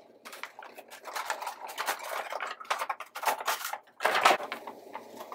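Cardboard and clear plastic packaging of a boxed vinyl figure being handled and opened: a run of rustling, scraping and crinkling, with a louder burst about four seconds in.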